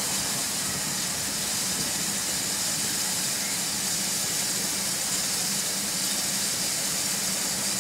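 Steady hiss of escaping steam from LMS Ivatt Class 2MT tank locomotive 41241, with no exhaust beats.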